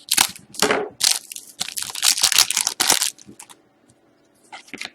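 Wrapper of a 2013-14 Panini Select hockey card pack being torn open: a run of sharp crackling rips for about three seconds, then a few lighter rustles near the end.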